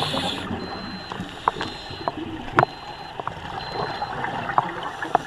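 Underwater sound around a scuba diver: a steady hiss and bubbling from exhaled regulator bubbles, with scattered sharp clicks. A faint high beep sounds about once a second, four times, through the first four seconds.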